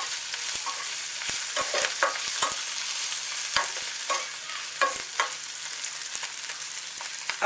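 Boiled babool (acacia) pods and spices frying in oil in an aluminium frying pan with a steady sizzle. A metal spoon stirs them, scraping and knocking against the pan in irregular strokes, mixing the spices in.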